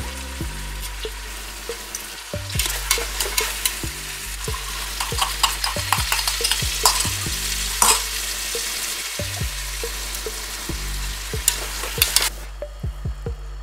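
Steel slotted spoon stirring and scraping chicken pieces and masala in a steel pot over a frying sizzle, a rapid run of clattering strokes from a few seconds in that stops sharply near the end.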